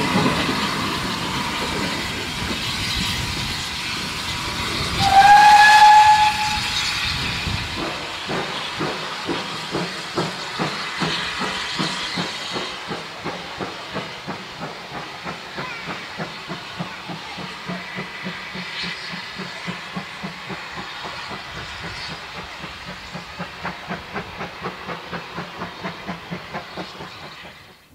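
Steam-hauled train passing close with steam hiss. The locomotive's steam whistle sounds once, a short note that rises slightly, about five seconds in. Then a regular beat, about two a second and quickening near the end, as the train runs on.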